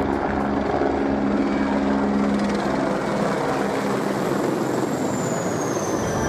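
Mi-17 military transport helicopter flying low overhead: steady rotor and turbine noise, with a high turbine whine that falls in pitch near the end as it passes.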